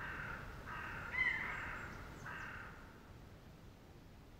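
A crow cawing about four times in short, harsh calls, the loudest about a second in.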